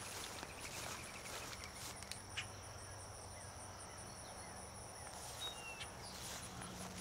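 Faint insects trilling steadily, a high evenly pulsed chirping, with a thinner steady high whine through the middle. Rustling steps through dry vegetation can be heard near the start and again near the end.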